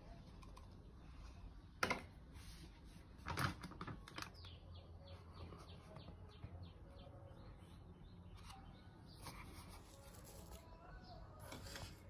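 A plastic container knocking and tapping over a plastic mixing bowl as flour is tipped out: a sharp click a couple of seconds in, a short clatter of taps about a second later, then a run of faint light ticks.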